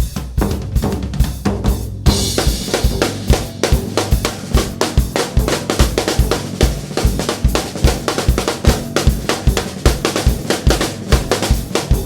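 A gugak ensemble playing an instrumental passage driven by a drum kit: a steady, fast kick-and-snare beat over held low notes, with cymbals coming in about two seconds in.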